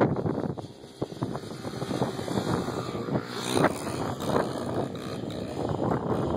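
Honda dirt bike engines running, briefly louder about three and a half seconds in.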